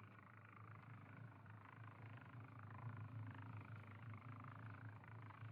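Faint steady low hum under a murmur of muffled background noise, with no distinct impacts.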